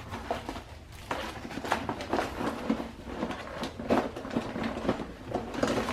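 Items being handled and rummaged through in a cardboard box: irregular clatter, knocks and rustling of objects being moved and picked up.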